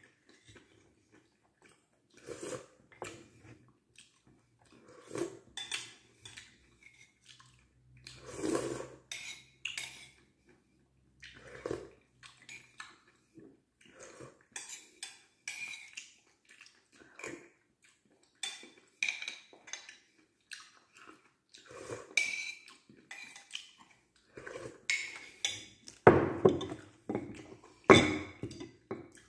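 Metal spoon clinking and scraping against a ceramic soup bowl and plate at irregular intervals, with the two loudest clinks near the end.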